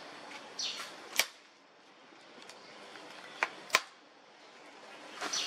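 Three sharp clicks: one about a second in, then two close together a little past the middle. Brief high-pitched sounds come shortly before the first click and again near the end.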